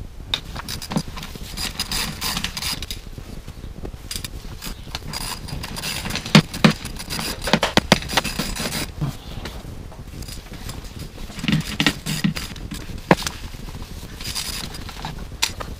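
Metal hand tools and fasteners clicking, clinking and scraping against engine parts in irregular bursts, with the sharpest clacks near the middle.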